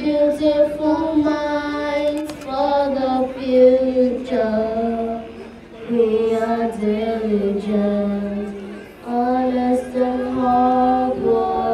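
Girls singing a melody unaccompanied into handheld microphones, in long held notes with short breaks about five and nine seconds in.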